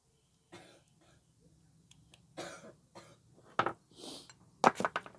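A person coughing several times in short separate bursts, with two or three sharp coughs close together near the end.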